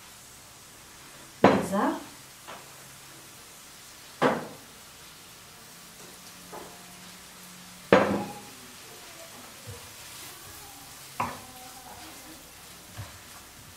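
Sliced onions and butter sizzling faintly in a ceramic-coated frying pan, with four sharp knocks that ring briefly. The loudest knocks come about a second and a half in and about eight seconds in. The knocks come from salt being added and the onions being stirred with a wooden spoon.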